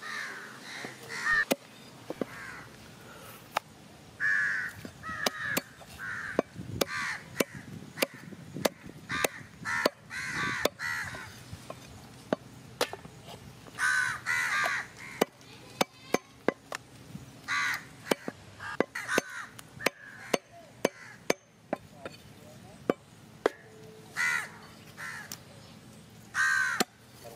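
Heavy cleaver chopping through chicken into a wooden stump block: sharp knocks, roughly one or two a second, unevenly spaced. Crows caw repeatedly in short runs throughout.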